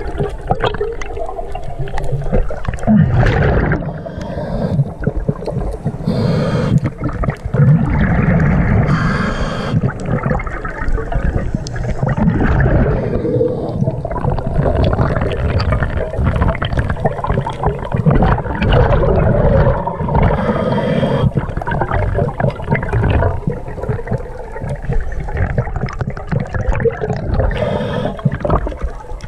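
Scuba regulator breathing underwater, heard through the camera's housing: a constant rumble of exhaled bubbles, with a short hiss of inhalation every several seconds.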